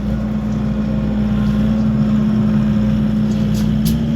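Skid steer engine running steadily at a constant speed.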